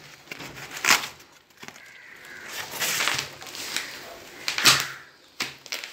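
Corrugated cardboard packing scraping and rustling against a solar panel's frame in a few short bursts, the loudest near the end.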